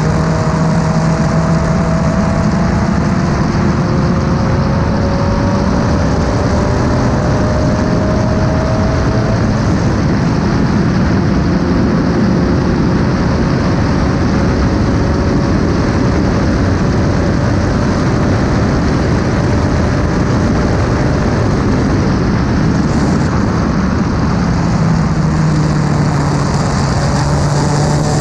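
Race car engine running hard at sustained high revs under heavy wind and road noise. Its note climbs slowly over long stretches, then drops and rises again near the end.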